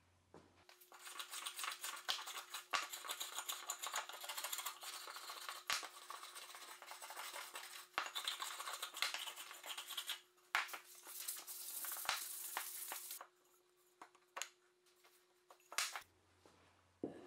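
Block plane shaving the edge of a softwood batten: a long run of quick rasping strokes that stops about 13 seconds in, followed by a few light knocks as the plane and wood are handled.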